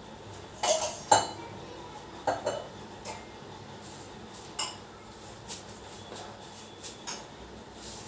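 Metal kitchen utensils and vessels clinking and knocking against each other, a string of separate hits with the loudest pair about a second in and lighter ones spread through the rest.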